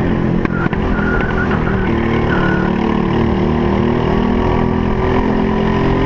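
Briggs & Stratton LO206 four-stroke single-cylinder kart engine running hard at racing speed, its pitch climbing slowly as the kart accelerates, with a couple of sharp clicks about half a second in.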